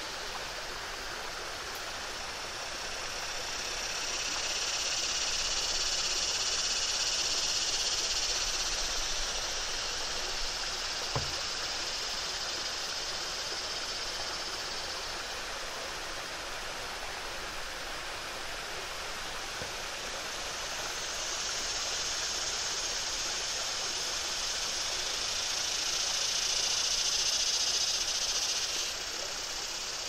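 Water rushing steadily over a low, rocky cascade a few feet high, with a chorus of cicadas droning above it in two long swells, the second cutting off sharply near the end.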